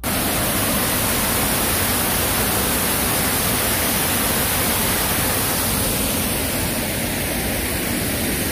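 Waterfall at Seven Falls: a loud, steady rush of falling water that cuts in suddenly and holds at an even level throughout.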